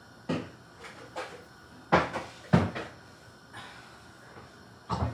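Kitchen cupboard doors opening and closing, with items being knocked about: a handful of sharp knocks and thuds, the two loudest close together about two and two and a half seconds in.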